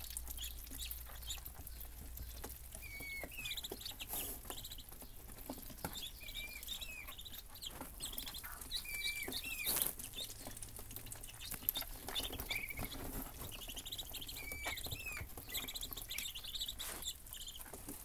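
Muscovy ducklings peeping: many short, high chirps with little rising and falling curls, repeating throughout, mixed with scattered light clicks and taps and one louder knock about ten seconds in.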